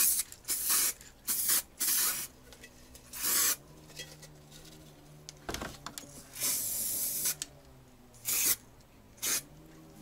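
Aerosol spray-paint can sprayed in short hissing bursts onto flower pots, about nine sprays with one longer, roughly second-long spray past the middle.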